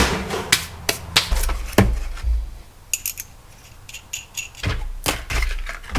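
Scrap steel pieces being handled and set down on a workbench: a series of clanks and knocks, with a few light metallic clinks that ring briefly about three seconds in.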